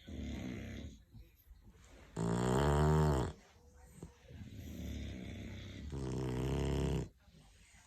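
English bulldog snoring: three long snores with a buzzing tone. The one about two seconds in is the loudest, and the last is the longest.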